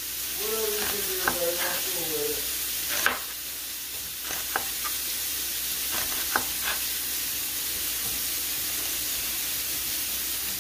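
Steaks sizzling in a frying pan with a steady hiss, with a few sharp clicks of a chef's knife meeting a cutting board as an onion is sliced.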